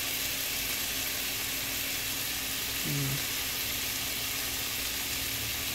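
Diced beef and garlic sizzling steadily in hot oil in a frying pan, with a brief voice sound about three seconds in.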